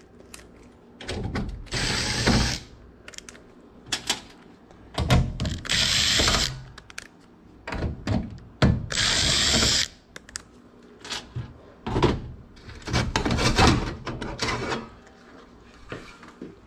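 Makita cordless driver with a nut-driver bit running in several short bursts of a second or two, taking sheet-metal screws out of an air-handler panel. Short clicks and knocks of handling come between the bursts.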